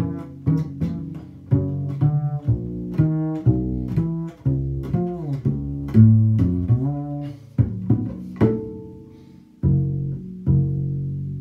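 Solo double bass played pizzicato: a steady run of plucked low notes, each with a sharp attack and quick decay, with some notes sliding in pitch in the middle and one note left ringing for about a second past the middle.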